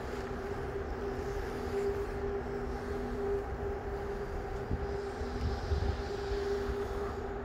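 Steady mechanical hum of an indoor ice rink's plant, with a low rumble and one held tone running through it.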